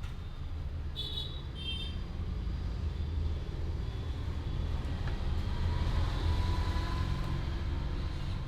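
Steady low rumble of road traffic, with two short high-pitched chirps a little over a second in.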